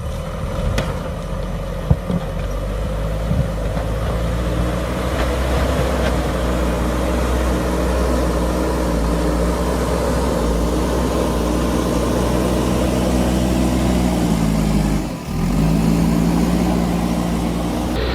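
Diesel engine of a JCB backhoe loader running steadily under work, with a few sharp knocks in the first few seconds. About fifteen seconds in, the engine note sags briefly, as if bogging under load, then recovers.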